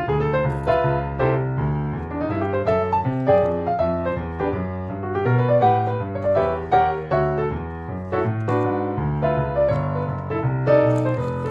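Piano music: a flowing melody of single notes over low bass notes.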